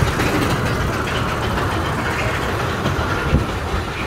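Mine train roller coaster running along its steel track, a steady rumble and rattle of the train's wheels on the rails.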